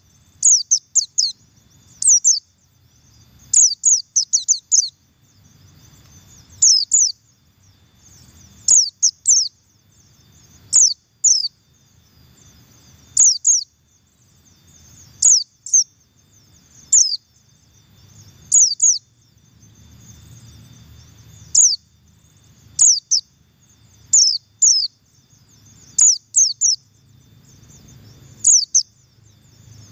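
Buxtoni white-eye (pleci) giving its double call: short, thin, very high notes sweeping downward, mostly in pairs, sometimes three or four together, repeated every second or two.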